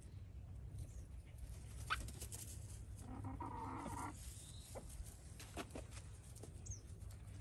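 A chicken gives a single call lasting about a second, about three seconds in. A few faint taps are scattered around it, over a steady low rumble.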